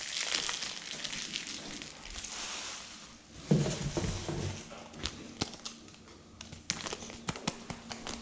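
Packaging crinkling and rustling as it is handled, then a thump about three and a half seconds in, followed by scattered light clicks and taps.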